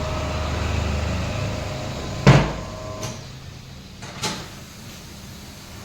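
A tyre-shop machine hums steadily and cuts off about three seconds in. A loud clunk comes about two seconds in and a lighter knock about four seconds in.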